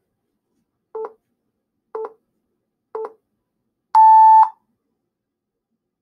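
Countdown timer beeping: three short, lower beeps a second apart, then one longer, higher and louder beep that starts a one-minute countdown.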